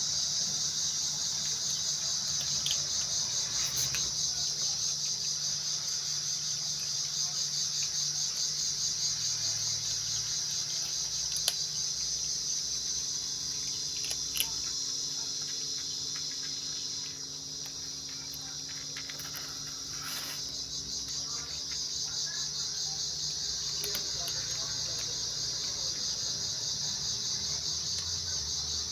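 Steady, fast-pulsing high-pitched chorus of insects, with a few short clicks in the middle.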